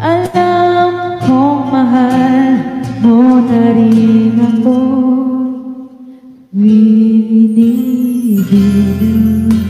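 A woman singing into a handheld microphone over guitar accompaniment, holding long notes with a wavering vibrato, with a brief break about six seconds in before she sings on.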